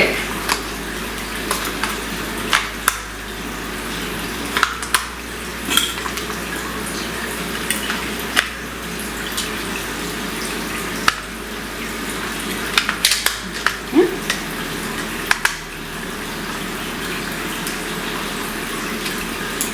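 Scattered sharp clicks and taps of plastic as AA batteries are fitted into a toy RC car's battery compartment and the cover is closed, over a steady hiss.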